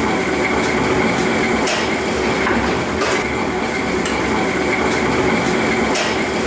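Plastic bangle factory machinery running steadily: a dense mechanical clatter with a constant high tone over it and faint knocks about every second or so.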